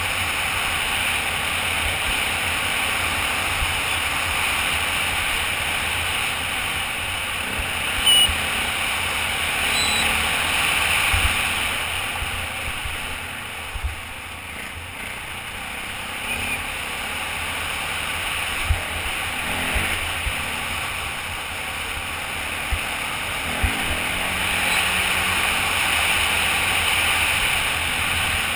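Off-road motorcycle riding on a dirt trail, heard from a helmet-mounted camera: steady wind rush over the microphone with the bike running underneath, and a few sharp knocks from bumps in the trail. The noise drops for a few seconds around the middle, then builds again.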